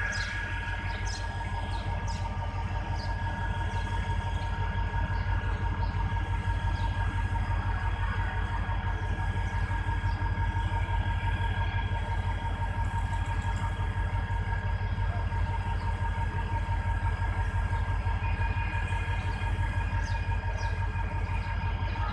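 Diesel locomotive engine running steadily, a deep continuous rumble with a few steady whining tones over it.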